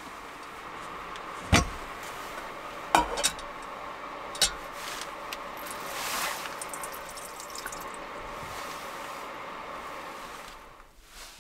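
Water spraying from a portable water tank's handheld shower nozzle onto hands, splashing most strongly about six seconds in and trickling for a moment after. Under it runs a steady hiss, and in the first few seconds a metal spoon clinks sharply against a bowl three or four times.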